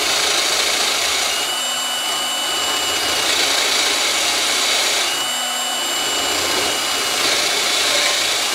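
Power drill boring a large hole into the solid wooden hull of a model ship, hollowing it out. It runs steadily under load, with a thin whine rising twice for about a second, and stops abruptly at the end.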